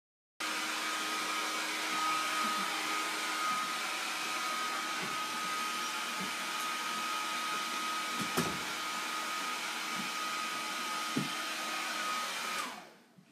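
An electric appliance motor, like a vacuum cleaner, running steadily with a high whine, then switched off near the end and winding down, the whine dropping in pitch as it fades. A few faint knocks sound while it runs.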